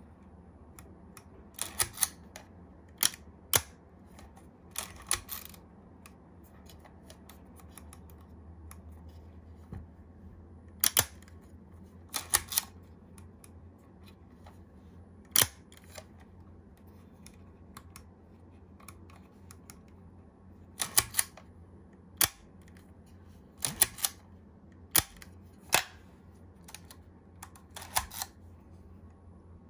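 Leica M7 rangefinder put through its shutter speeds: a series of sharp clicks as its cloth focal-plane shutter is fired again and again, several coming in close pairs or small clusters. Fainter ticks come from the shutter-speed dial being turned between releases.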